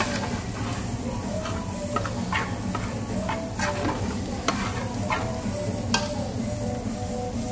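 Slotted metal spatula stirring and scraping sautéing onions, garlic and curry powder around an aluminium pan over high heat: irregular clacks of metal on metal, about one a second, over a sizzle. A steady low hum runs underneath.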